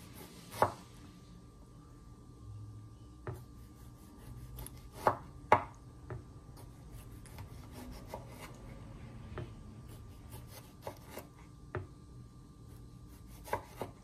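Kitchen knife chopping tomato on a wooden cutting board: irregular knocks of the blade striking the board, with a few louder strikes, one about half a second in and two close together near the middle.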